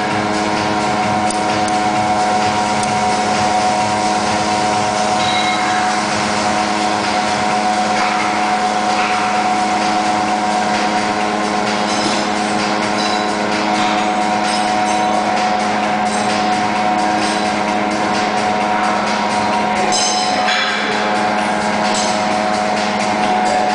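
A loud, steady mechanical hum made of several held tones that do not change, with a few faint brief rattles now and then.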